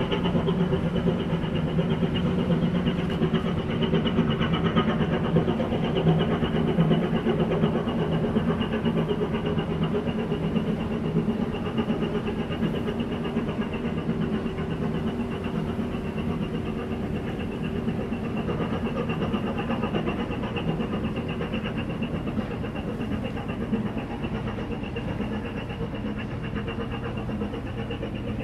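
Low, steady engine drone of a departing general cargo ship, fading slowly as the ship moves away.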